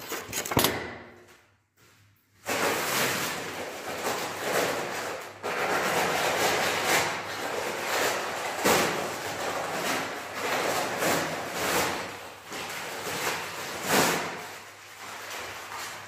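Heavy multi-layer paper sack of dry decorative plaster mix being handled and torn open: continuous crinkling and rustling of stiff paper with sharp crackles, starting in earnest about two and a half seconds in after a brief crackle at the start.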